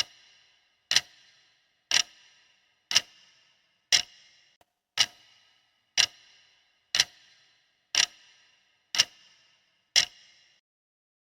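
A clock ticking once a second, eleven sharp ticks, each with a short ringing decay, stopping about ten seconds in.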